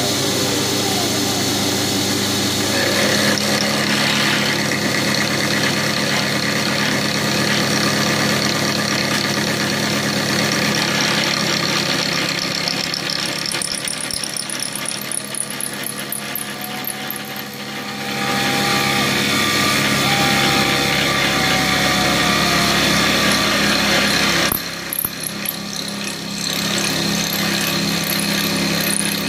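Milling machine spindle running steadily while an end mill cuts an aluminium bar held in a vise. The sound changes abruptly about 25 seconds in.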